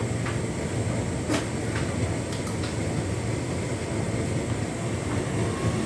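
Hotpoint Ultima S-line tumble dryer drum turning a full load on its distribution cycle: a steady low rumble with a few short clicks scattered through it.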